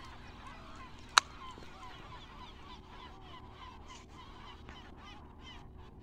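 Many birds calling at once, a busy chatter of short overlapping calls. A single sharp click about a second in is the loudest sound.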